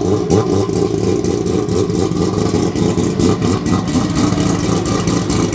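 Mazda RX-8 racing car's engine idling steadily with a rapid, uneven, choppy beat.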